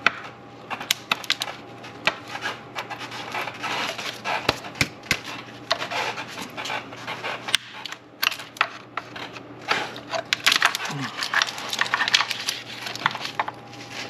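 Irregular clicking and clattering of hand work on an engine: tools and parts knocking and ticking, in quick clusters throughout, over a faint steady hum.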